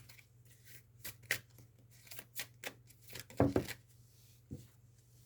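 Tarot cards being shuffled and handled: a run of quick papery flicks and taps, the loudest cluster about three and a half seconds in.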